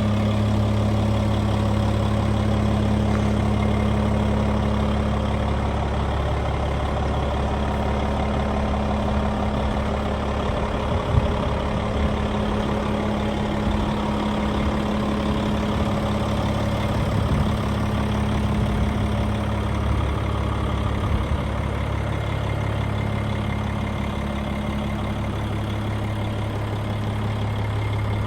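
2007 American LaFrance garbage truck's diesel engine idling steadily, with a few brief knocks near the middle.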